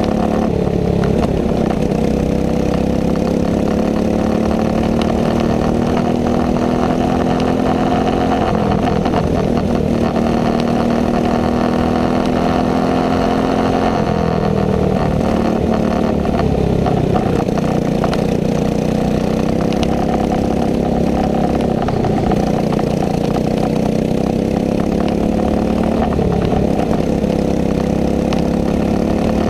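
Racing kart engine at full race pace. Its pitch climbs steadily on the throttle, then drops sharply when the driver lifts for a corner, several times over.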